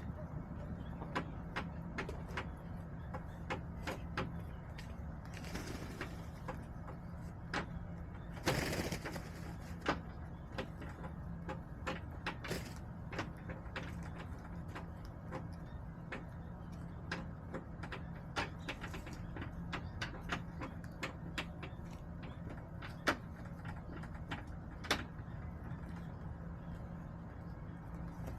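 Backyard hens moving about the coop: irregular sharp taps and clicks, typical of pecking and scratching, with two short rustles about six and nine seconds in, over a steady low hum.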